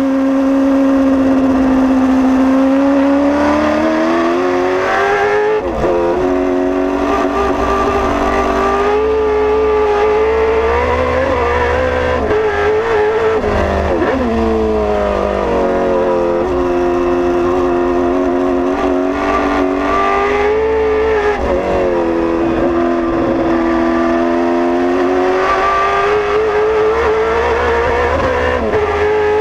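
Holden Torana SLR5000 race car's V8 engine heard from inside the cockpit at racing speed. Its pitch repeatedly climbs under full throttle and then drops sharply at gear changes and corner entries, about half a dozen times.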